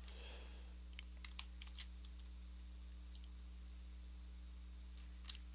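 A few faint, isolated clicks from a computer mouse and keyboard in use, over a steady low electrical hum.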